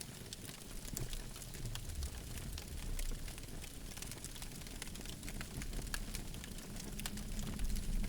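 Campfire crackling, with frequent sharp pops and snaps over a low rumble of burning wood.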